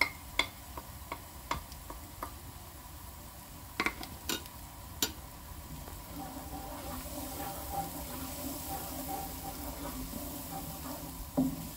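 Ginger-garlic paste and turmeric sizzling in hot oil in a nonstick wok while a wooden spatula stirs and scrapes. Several sharp knocks of a utensil against the pan in the first five seconds, and the sizzle grows to a steady hiss from about seven seconds in.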